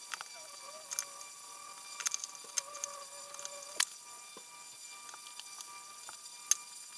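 Scattered small sharp clicks and taps of a plastic pry card and tweezers against an opened smartphone's frame and battery as it is handled, the loudest about four seconds in, over a faint steady tone.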